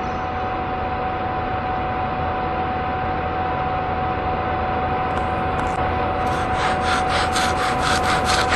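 Soundtrack drone: a dense, steady rumbling noise with one held tone running through it. About six seconds in, a rhythmic noisy stroking starts, about four strokes a second, and grows louder.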